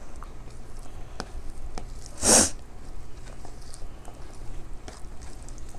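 One short, sharp burst of breath, like a sneeze, a little over two seconds in. It stands out over faint small clicks of fingers working rice on a plate.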